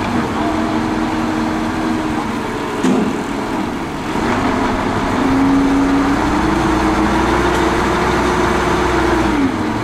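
A motor vehicle's engine running steadily, rising in pitch about four to five seconds in as it picks up revs, then falling and stopping just before the end.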